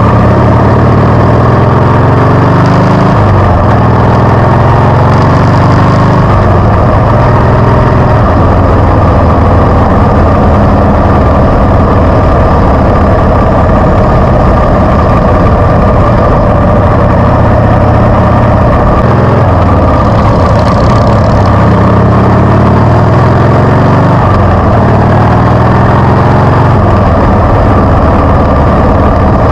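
Harley-Davidson V-twin motorcycle engine under way, loud and continuous; the engine note climbs and then drops back several times as it pulls up through the gears, shifting near the start and again about twenty seconds in, with a steady cruise between.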